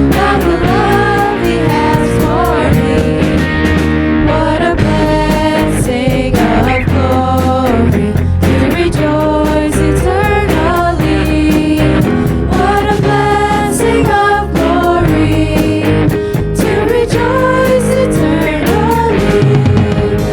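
Band music with drums and melodic lines over a sustained bass, in a passage with no sung words.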